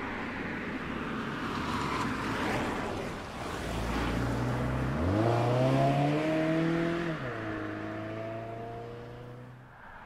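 2015 Mazda 6 sedan driving past: a rushing of tyres and wind at first, then about five seconds in the engine note climbs as it accelerates, drops sharply a couple of seconds later and runs on at a lower steady pitch, fading near the end.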